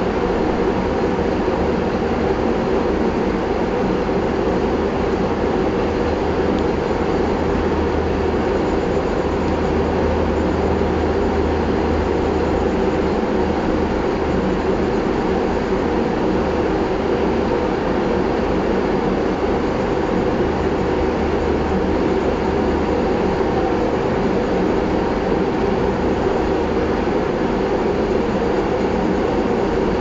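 A steady, unbroken mechanical drone with a low hum, loud and unchanging throughout.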